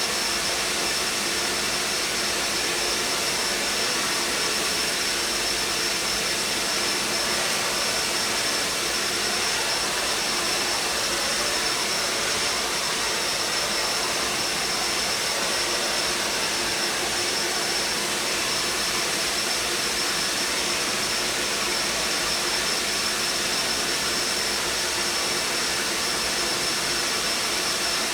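Vacuum cleaner running steadily: an even rush of airflow with a constant high whine from the motor, holding the same pitch and loudness throughout.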